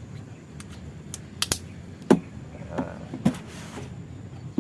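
A handful of sharp clicks and knocks from parts being handled inside an empty motorcycle top box, the loudest about two seconds in, followed by a brief rustle.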